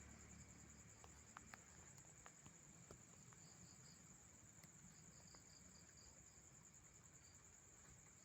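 Faint insect chorus: crickets trilling steadily in a high, pulsing tone, with groups of short chirps from another insect and a few soft clicks a second or two in.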